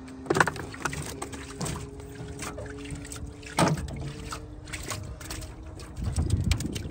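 Cast net being shaken out into a metal boat: hassar catfish, mud and water drop onto the metal floor in a run of irregular knocks and clatters, with water trickling from the mesh.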